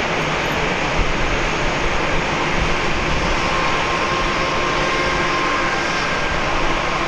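Airbus A350-1000's Rolls-Royce Trent XWB engines running at idle thrust as the airliner taxis past, a steady rush of jet noise with a faint whine coming through about halfway in.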